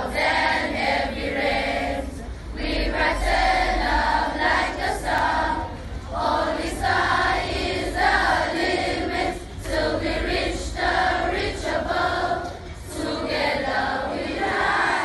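A choir of schoolgirls singing together in phrases, with short breaks between them.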